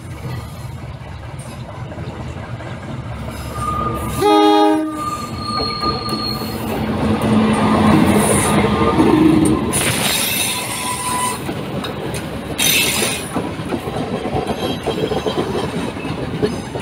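A passenger train rolls over wye track. About four seconds in its horn gives one short loud blast, followed by a brief wheel squeal. The rail rings and clanks under the wheels ('gongsol'), loudest at about ten and thirteen seconds in.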